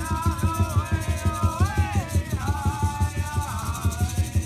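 Snake-dance song: a singer chanting a melody that holds notes and slides between them over a steady, fast drumbeat of about four beats a second.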